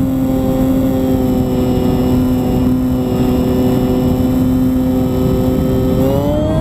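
The aircraft's motor and propeller run steadily at one pitch, over a rush of wind noise. The pitch rises as the motor speeds up about six seconds in.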